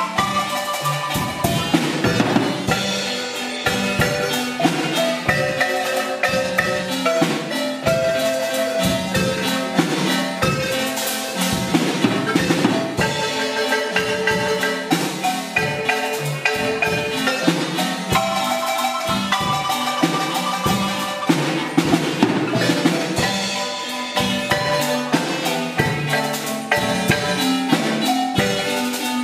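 Wooden marimba played with mallets by two players: a lively tune of many quick struck notes.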